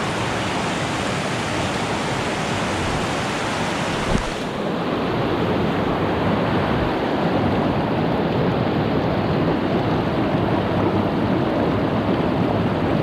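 Mountain trout creek rushing over boulders through riffles and small cascades: a steady, loud rush of water.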